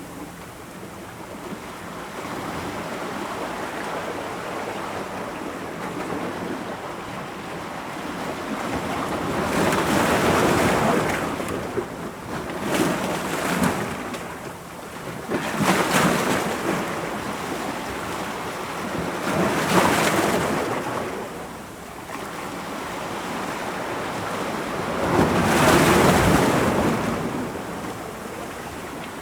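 Ocean waves breaking against rocks: a steady wash of surf with several louder crashes that swell and fall back a few seconds apart.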